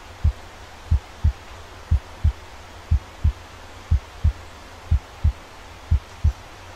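A heartbeat sound effect: pairs of low thumps (lub-dub) repeating evenly about once a second, over a faint steady hiss.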